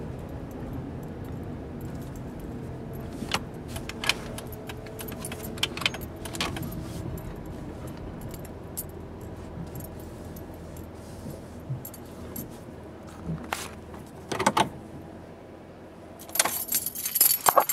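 Van running slowly with a steady low rumble in the cabin, while a bunch of car keys rattles and clicks now and then; near the end the keys jangle loudly for about a second.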